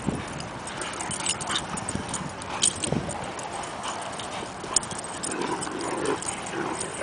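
Great Danes and an Irish Wolfhound playing rough: paws thudding and scuffling on grass as they rear up and chase, with a short low sound from one of the dogs about three seconds in.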